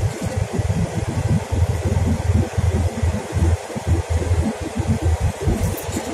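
Cabin noise of a moving bus: a steady rumble and hiss with uneven, choppy low buffeting throughout.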